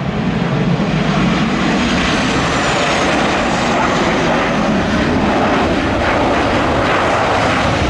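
Boeing 737 airliner's jet engines running steadily as it lands and rolls out along the runway. A faint high whine falls in pitch a few seconds in.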